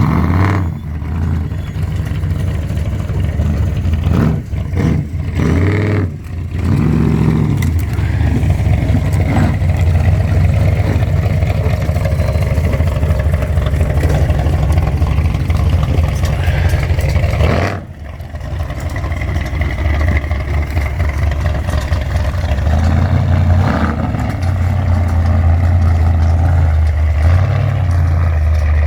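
Off-road 4x4's engine running and revving as it crawls over rocks, with short dips in level and a sharp drop about two-thirds through.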